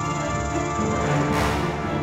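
Background music with a steady, full sound.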